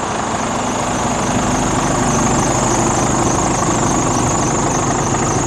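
Scania R410 Euro 6 truck's 13-litre straight-six diesel engine idling steadily.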